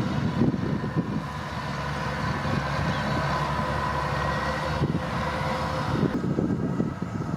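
Kubota DC-105X combine harvester's diesel engine running steadily under harvesting load, with a steady whine from its machinery over a low rumble. Wind buffets the microphone.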